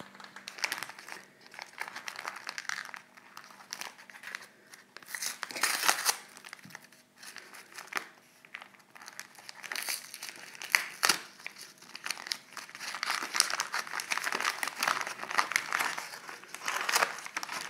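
Patterned brown paper gift wrapping being crumpled and torn open by hand: irregular crinkling and rustling in bursts with brief pauses and a few sharp rips.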